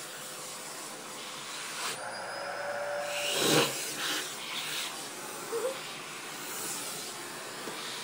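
Vacuum cleaner running with a steady hiss of suction as it is drawn over a cat's fur. A brief steady tone sounds about two seconds in, and a short, louder sound comes about three and a half seconds in.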